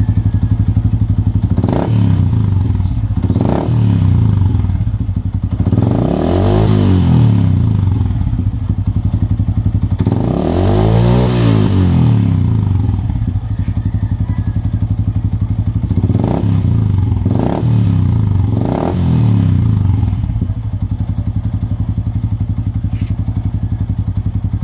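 Yamaha Sniper 150's single-cylinder four-stroke engine, fitted with an Exos R6 aftermarket exhaust, idling and being revved. It gives two quick throttle blips, then two longer revs that rise and fall, then three more quick blips before settling back to idle.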